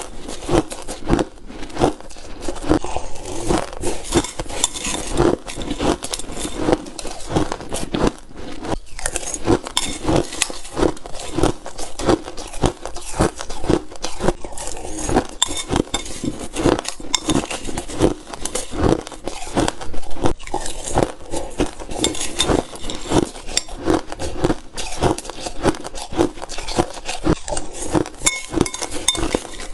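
A person biting into crunchy crushed ice, a dense, continuous run of crisp crunches.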